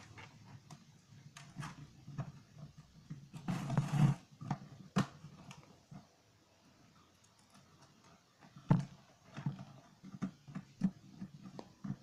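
Scattered small clicks and taps of hands handling wires and a plastic rocker switch on a plastic case, with a brief rustle about four seconds in.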